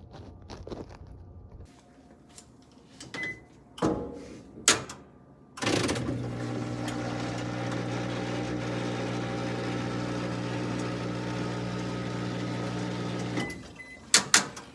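Washing machine drain pump running: a steady electric hum lasting about eight seconds that cuts off suddenly. Scattered clicks and knocks come before it, and two sharp clicks come near the end.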